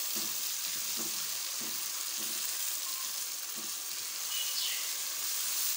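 Onion, ginger-garlic and tomato paste sizzling in hot oil in a karahi, a steady hiss, while a spatula stirs through it with soft strokes every second or so. This is the base masala for a curry being fried.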